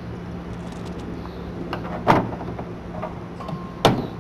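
Two sharp clicks, about two seconds in and again near the end, as the spray bar's twist-lock electrical plug is handled and fitted, over a steady low hum.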